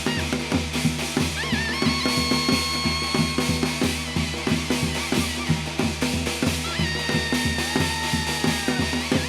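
Korean shamanic ritual (gut) music: a fast, steady drumbeat with other percussion, and a wind instrument holding long high notes over it twice.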